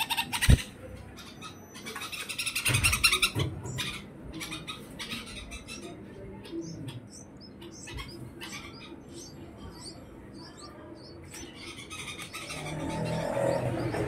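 Red-vented bulbul nestlings begging with rapid high-pitched chirping. It comes in two loud bursts, one at the start and one around the third second, with scattered chirps between. There is a sharp thump about half a second in, and a low rumble grows near the end.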